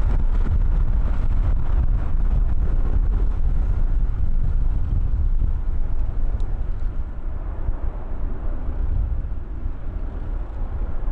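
Strong wind buffeting the microphone: a loud, gusting low rumble outdoors, with no engine tone standing out.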